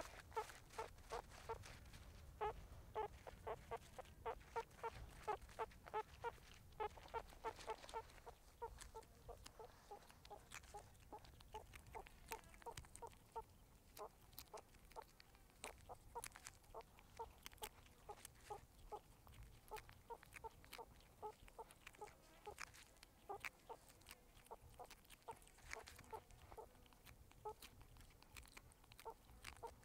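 Meerkats giving short, soft repeated calls, about three a second, thinning out after about eight seconds, with scattered faint clicks.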